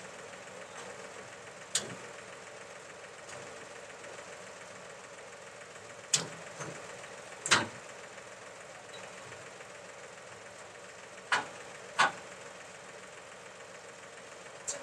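Tractor engine idling steadily while its hydraulic loader holds a concrete mixer. About six sharp knocks and clanks come through it, two of them in close pairs, as the mixer is shifted on the truck bed.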